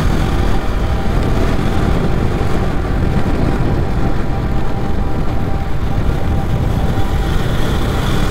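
KTM Duke 390 single-cylinder engine running at road speed under heavy, steady wind rush on the helmet microphone.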